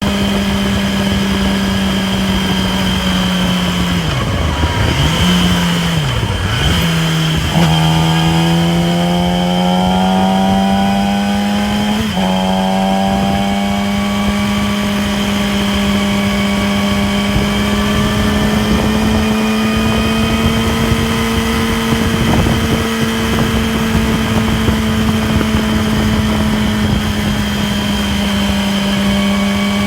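2008 Yamaha R6 inline-four engine running under way at a steady cruise of about 6,000 rpm. The engine dips in pitch twice and changes pitch abruptly around 8 and 12 seconds in as gears are shifted. A steady high whine rides over the engine note: a strange whirring the owner has not yet diagnosed.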